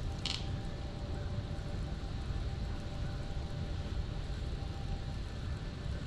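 Steady low rumble of wind buffeting the microphone, with a faint steady hum and one brief high-pitched sound just after the start.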